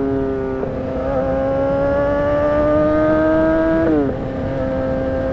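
2008 Honda CBR600RR's inline-four engine under way: the pitch steps up about half a second in, climbs slowly under steady throttle, then drops sharply about four seconds in at a gear change and holds steady, with wind rush underneath.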